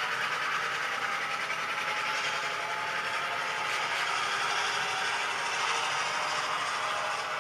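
HO scale model freight cars rolling past on the track, their wheels making a steady rattle along the rails.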